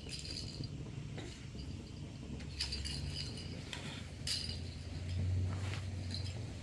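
Several light clinks with a brief ring, as of glass or metal being knocked together, over a low rumble that swells in the second half.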